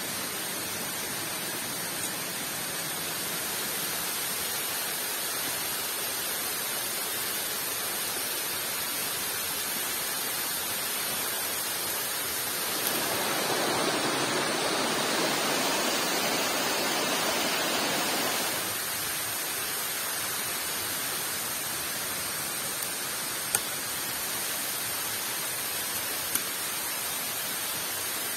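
Steady rushing of a waterfall. It grows louder and fuller for about five seconds in the middle, and two brief clicks come near the end.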